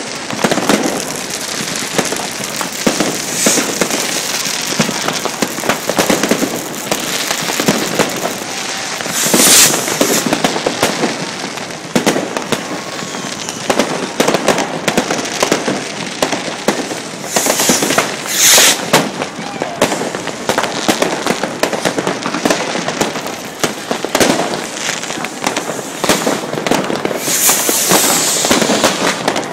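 Many fireworks and firecrackers going off at once: a continuous rapid crackle of bangs and pops, with a few brief, louder hissing bursts about a third, two thirds and nine tenths of the way through.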